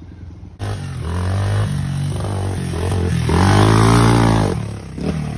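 Honda XR100 dirt bike's small single-cylinder four-stroke engine pulling through the gears, its pitch climbing and dropping back at each shift. It is loudest about three and a half to four and a half seconds in as the bike rides close past, the pitch rising and then falling.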